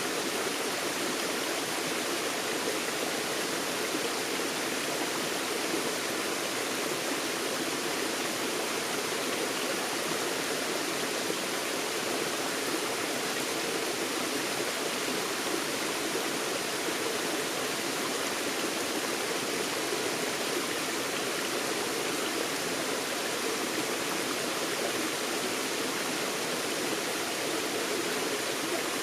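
Forest stream flowing over rocks: a steady, even rush of water.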